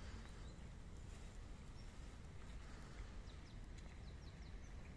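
Faint outdoor ambience: a steady low rumble, with a few short high bird chirps a little past the middle.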